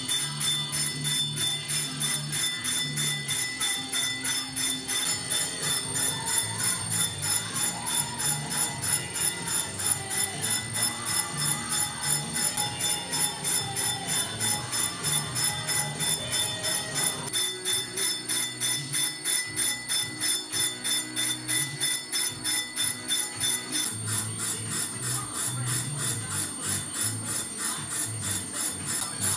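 Brake drum being cut by a single-point tool at 190 rpm: an interrupted cut that strikes the drum about three times a second and sets it ringing like a bell, steadily throughout.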